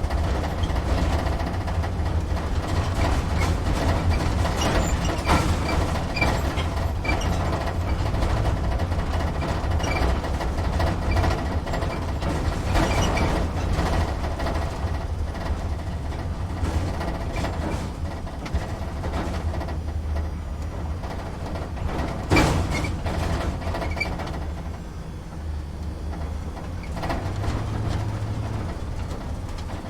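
Truck heard from inside the cab at slow speed: the engine's steady low rumble with cab rattles and small knocks throughout, and one sharper knock about two-thirds of the way through.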